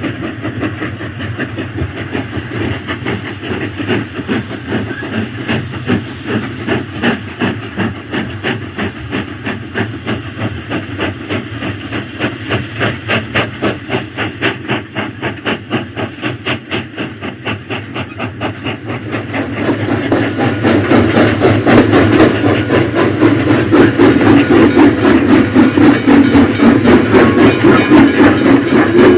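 Rail King toy train running around its track with a rhythmic chugging pulse of a few beats a second, growing louder about two-thirds of the way through.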